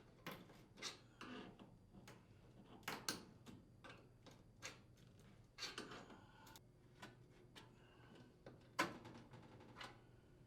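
Faint, scattered clicks and taps of a flathead screwdriver working the plastic tabs of an oven door switch to release it from the range's front panel, with one sharper click near the end.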